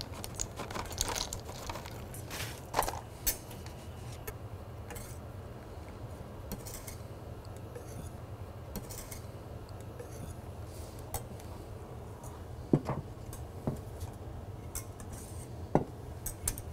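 Wire whisk clinking and scraping against a stainless steel saucepan as chocolate is whisked into hot cream. Light irregular clicks throughout, with a few louder knocks.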